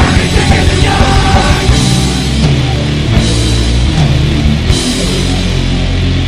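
Loud heavy rock music, with fast drumming for the first second and a half or so, then long held low notes.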